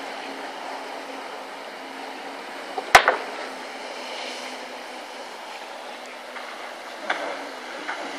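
A distant jet ski's engine drones steadily over wind and surf noise. A sharp knock, the loudest sound, comes about three seconds in, and a lighter one comes near the end.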